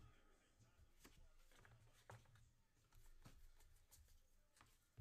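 Near silence, with a handful of faint clicks and slides of trading cards being flipped through by hand.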